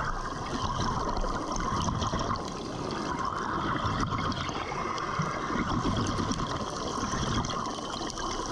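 Underwater recording of continuous bubbling and water noise, with an uneven low rumble underneath.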